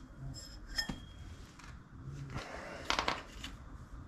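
Light metallic clinks and a short scraping rattle from a mini bike's torque converter driver pulley being handled and turned by hand, a check that it runs true without wobble. One ringing clink comes just under a second in, the rattle around three seconds in.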